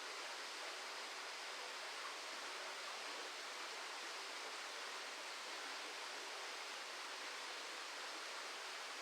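A steady, even hiss with no separate events.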